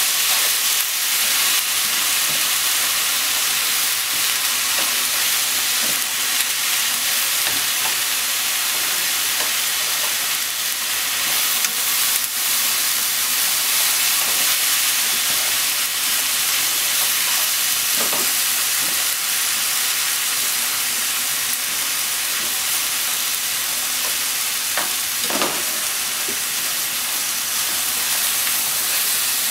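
Shiitake, enoki and long green onion sizzling steadily as they stir-fry in a frying pan, turned with wooden chopsticks. A few light knocks of the stirring come through the sizzle, one about 18 seconds in and a couple near 25 seconds.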